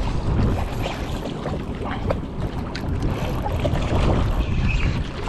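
Wind buffeting the microphone, a steady low rumble, over water noise, with a few small knocks about two seconds in.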